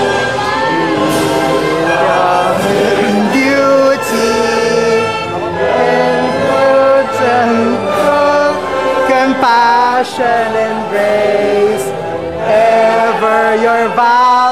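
A choir singing a university hymn with instrumental accompaniment, the voices wavering on held notes.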